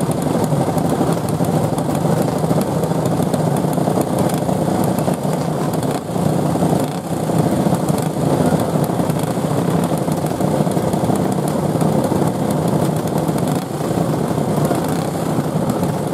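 Several racing go-karts with 5 hp Briggs & Stratton Raptor flathead single-cylinder engines running as they circle a dirt oval.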